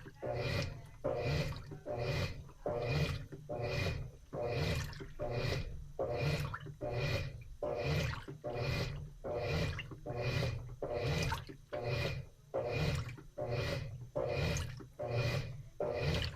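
Washing machine agitating its load in the wash cycle: water sloshing back and forth in a regular rhythm, a little more than one stroke a second.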